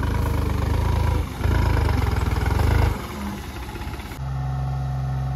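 New Holland 3630 tractor's diesel engine at full throttle, pulling hard in two loud surges with a brief dip between them. About four seconds in it switches suddenly to a steady, even run.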